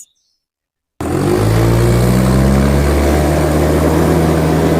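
A vehicle engine running steadily. It starts abruptly after a second of silence, with a brief rise in pitch soon after it starts.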